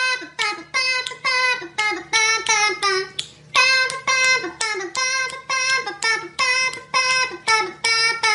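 High-pitched singing voice: a run of short repeated notes, between two and three a second, each dropping in pitch at its end, with a brief break about three seconds in.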